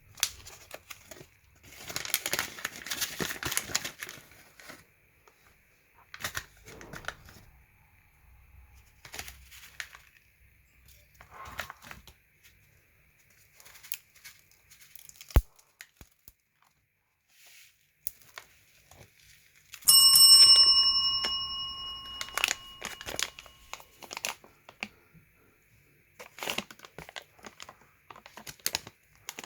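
Plastic candy packaging crinkling and tearing in short bursts, with a sharp click about halfway through. About two-thirds of the way in comes a single bright bell-like ring, the loudest sound, which fades over a few seconds.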